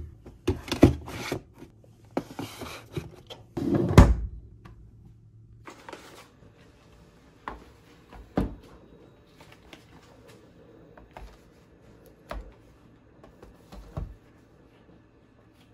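Cardboard boxes being handled: rustling and knocking as a box is lifted out of a vending machine's plastic pickup drawer, ending in a heavy thunk about four seconds in. Then four separate sharp knocks as cardboard boxes of frozen meat are set down on a kitchen counter.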